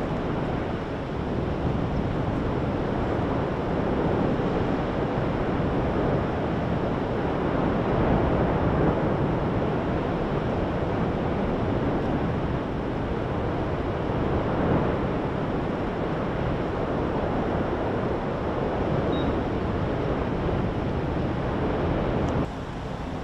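Steady, deep rushing roar of the Fissure 8 lava fountain, swelling and easing slightly without a break.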